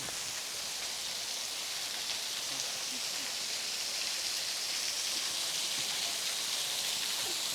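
Steady rush of water from a waterfall, growing a little louder about four seconds in.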